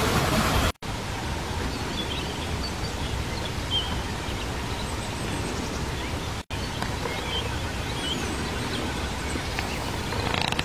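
Outdoor pasture ambience: a steady background rush with a few faint bird chirps. The sound cuts out briefly twice, about a second in and again just past the middle.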